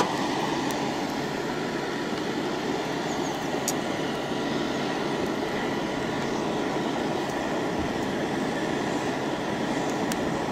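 Hairdryer blowing air through a pipe into a coal forge: a steady rushing noise with a faint motor hum, over the burning coal fire. A few light clicks near the middle and the end.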